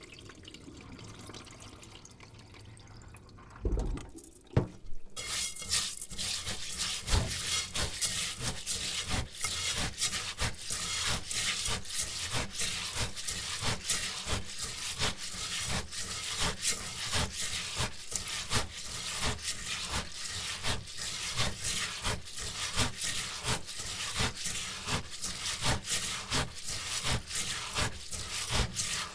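Rice being washed by hand in a bowl: a few knocks about four seconds in, then a steady run of quick swishing, rubbing strokes of wet grains, several a second.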